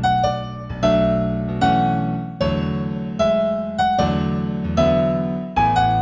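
New-age keyboard music in A major: a slow melody of struck piano notes, one about every 0.8 seconds over sustained low chords, each note ringing and fading.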